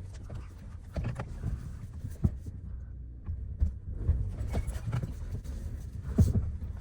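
Car moving slowly over rough, rocky ground: a steady low engine and road rumble with several knocks and thumps, the loudest near the end.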